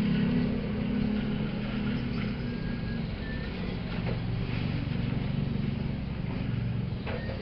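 Washing machine motor running with a steady low hum, dropping slightly in level about half a second in.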